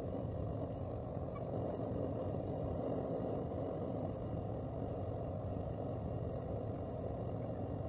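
Single-burner gas forge running with a steady rushing roar while the billet heats to welding temperature.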